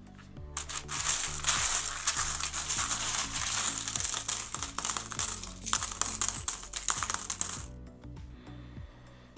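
Loose metal coins rattling and clinking as they are rummaged through in a tub, for about seven seconds before stopping abruptly.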